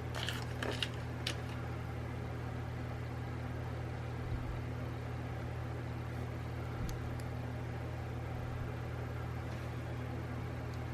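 Steady low room hum, like a fan or appliance running, with a few faint light clicks from small items being handled.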